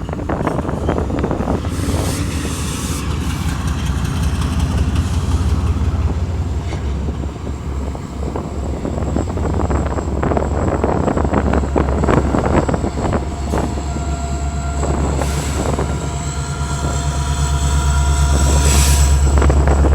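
BNSF train passing close by: a steady low rumble with wheels clicking over the rails. Faint steady tones join in about two-thirds of the way through, and the rumble swells near the end.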